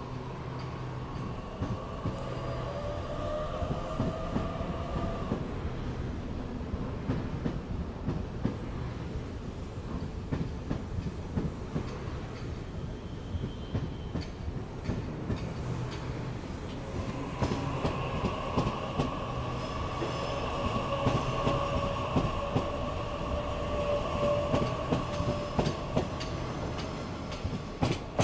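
Waratah double-deck electric train moving through the station: its motors give a gliding whine that dies away about five seconds in and comes back from about seventeen seconds. Wheels clack over the rail joints throughout, over a low rumble.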